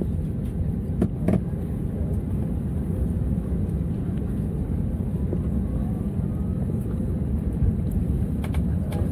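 Airbus A321 cabin noise while taxiing: a steady low rumble of the jet engines at taxi power and the wheels rolling on the taxiway. A few brief knocks come about a second in and again near the end.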